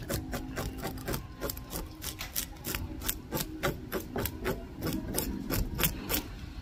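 A whole croaker being scaled by hand: quick, repeated scraping strokes across the fish's scales, about four a second.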